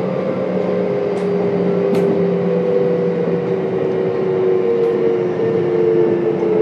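Kintetsu 1031-series electric train's Hitachi GTO-VVVF inverter and traction motors humming over the rumble of the running gear. The paired motor tones slowly fall in pitch as the train slows, and a few sharp clicks sound along the way.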